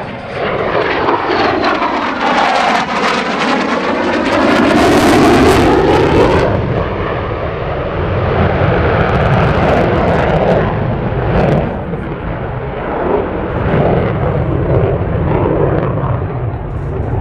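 Lockheed Martin F-35A Lightning II's single Pratt & Whitney F135 afterburning turbofan, loud jet roar during a low display pass. For about the first six seconds it sweeps in pitch and crackles, then it settles into a steadier rumble as the jet pulls away with the afterburner lit.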